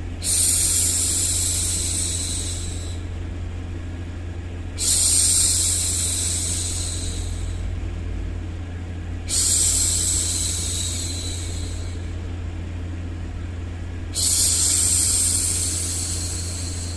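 A woman's voice shushing "shhh" to soothe a baby: four long shushes, one about every four and a half seconds, each starting sharply and fading out, over a steady low hum.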